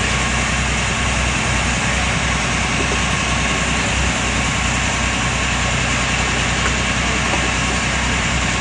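A passenger riverboat's engine running at a steady drone while underway, with a constant low hum and an even hiss over it.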